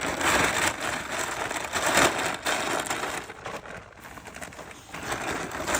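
Irregular rustling and crinkling noise, loudest about two seconds in.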